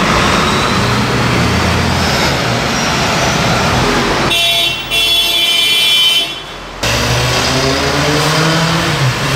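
Busy city street traffic: buses and cars passing and pulling away, engines and tyre noise, with an engine's pitch rising near the end. In the middle a steady high-pitched tone sounds for about two seconds.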